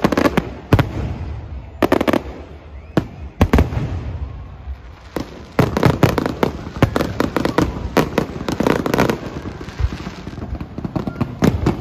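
Fireworks display going off: sharp bangs spaced a second or so apart, then a dense rapid barrage of bangs and crackles through the middle, thinning out again near the end.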